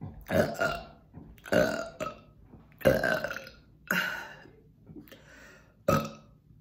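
Five loud deliberate burps in a row from a woman, each about half a second long, coming about once a second with a longer pause before the last. They are soda burps, brought up after chugging Canada Dry.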